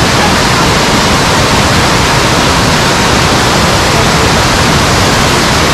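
Loud, steady rush of water from a mountain waterfall, an even unbroken noise with no other distinct events.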